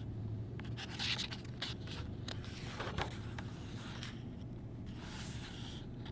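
Paper pages of a picture book being turned by hand: soft rustling and a few light taps over the first few seconds, then a brief papery swish near the end as a hand brushes across the page.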